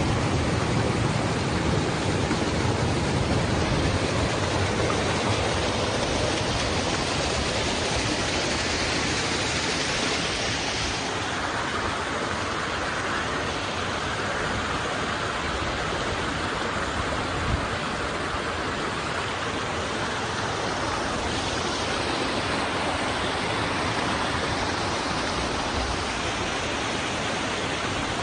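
Rainwater runoff rushing over sandstone rocks as a small seasonal waterfall: a steady rushing noise whose tone shifts a couple of times.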